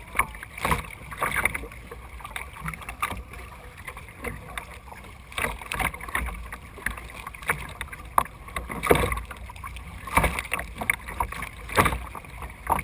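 Kayak paddle blades dipping and splashing in the water, in uneven strokes about every second or two.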